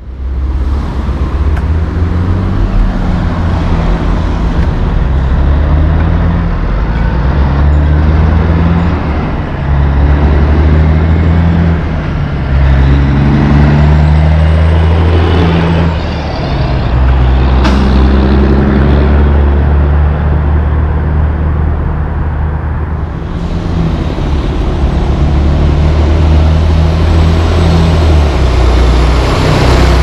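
Heavy diesel engines of dump trucks and an asphalt paver running, the engine note shifting in pitch now and then. Strong wind buffets the microphone throughout.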